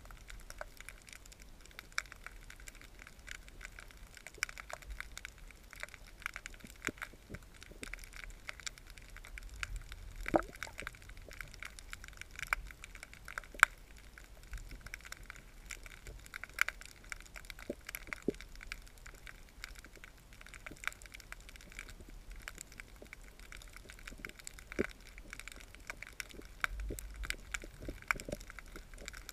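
Underwater ambience among pier pilings: irregular sharp clicks and crackles, a few louder snaps among them, over a steady faint hiss.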